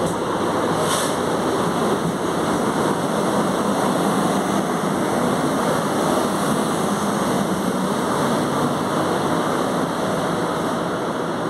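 SKM Trójmiasto electric multiple unit rolling along the platform as it brakes to a stop: a steady rush of wheels and running gear.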